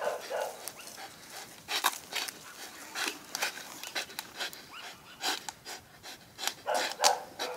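An American Staffordshire Terrier breathing hard in quick, irregular breaths while it hangs by its jaws from a bicycle tire.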